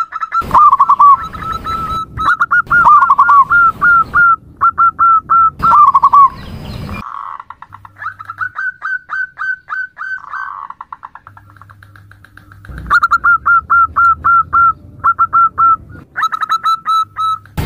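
Female zebra dove (perkutut) calling: rapid runs of short, clipped cooing notes, about five a second, in bursts of a few notes with brief pauses, some bursts dropping to lower notes at the end. The calling goes softer for a few seconds in the middle, then comes back loud.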